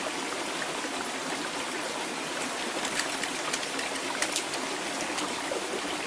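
Small rocky mountain brook running over stones and little plunge pools, a steady rush of water, with a few faint clicks about halfway through.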